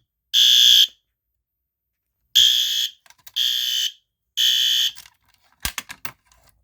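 System Sensor P2R SpectrAlert Advance horn strobe sounding its horn in half-second blasts. There are two blasts, a pause, then a group of three, the temporal-three fire evacuation pattern, and then it stops. A few sharp clicks follow near the end.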